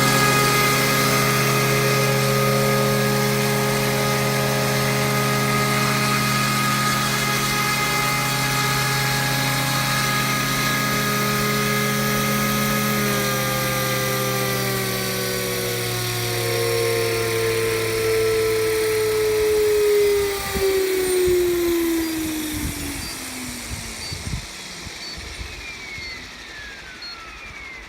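Scale AS350 radio-controlled helicopter with a three-blade rotor head, its motor and rotor running at a steady whine, then spooling down: the pitch falls steadily from about halfway through and the sound fades as the rotor slows to a stop.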